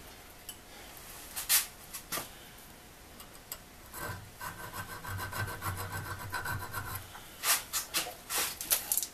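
Hand file strokes rasping on the steel Acme threads of a vise screw: two single strokes early, then a quicker run of strokes near the end. A steady hum runs for about three seconds in the middle.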